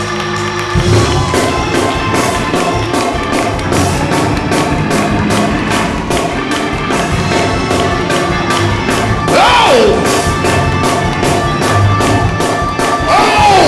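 Church band playing fast gospel praise music with a quick, steady beat and held chords. A voice calls out twice over it, once past the middle and once near the end.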